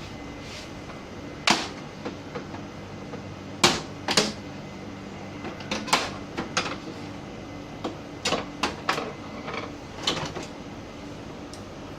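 Irregular sharp plastic clicks and knocks, about a dozen, the loudest a pair a little under halfway through, from the casing and parts of an HP LaserJet printer being handled and opened up.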